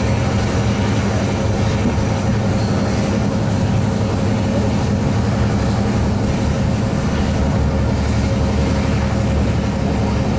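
Diesel-electric locomotives working steadily under load, led by the Clyde-built Da-class Da 1431 with its two-stroke EMD engine, alongside Dc 4818: a loud, even engine drone with a steady whine running through it.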